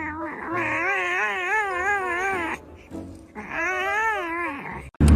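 A cat yowling in long, wavering cries, two of them in full with a short break between, cut off sharply near the end.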